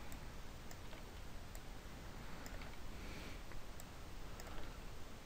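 Faint, scattered clicks of a computer mouse and keyboard keys as blocks of text are selected and deleted.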